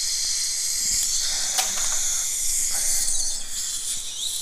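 Steady hiss of dental suction in the patient's mouth, with a few faint clicks of metal instruments about a second and a half in.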